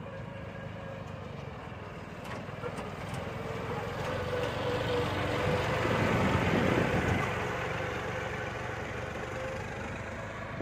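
John Deere 5310 tractor's three-cylinder diesel engine running steadily while grading soil. It grows louder as the tractor passes close by about six seconds in, then fades again.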